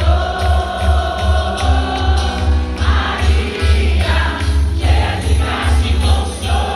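Religious song with voices singing together over an amplified band: a steady bass beat and jingling percussion.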